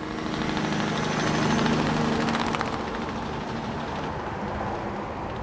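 A vehicle engine running steadily, its hum strongest for the first two seconds or so and then easing into a steadier background noise.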